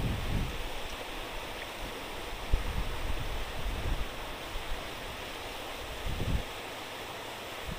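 Steady rush of water, discharged from a fishpond sluice gate into the estuary, with a few low thumps.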